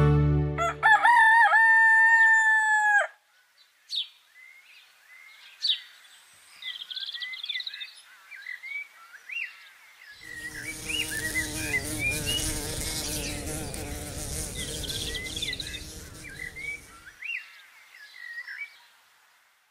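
A rooster crowing once, a held cock-a-doodle-doo about two seconds long. Small birds then chirp on and off, with a louder, busier patch of farmyard noise in the middle that dies away near the end.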